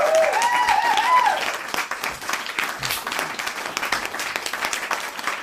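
Dense, steady crackling and rustling noise. In roughly the first second and a half, a voice calls out with a rising and falling pitch.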